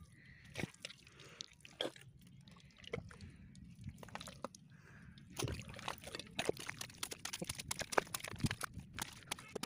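Wet mud squelching and popping as it is dug out of an eel burrow by hand, with many small clicks that get busier and louder about halfway through.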